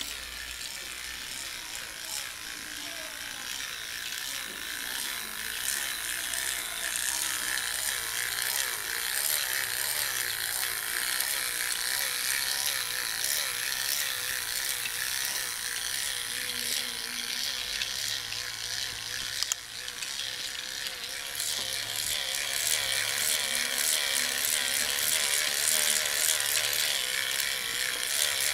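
Battery-powered toy steam locomotive running on plastic track, its small motor and gears giving a steady whirring rattle. It grows louder in the last third as the train comes close.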